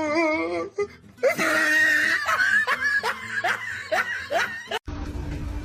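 Laughter in repeated rising bursts. About five seconds in it cuts off abruptly to a steady low hum with short, sharp calls.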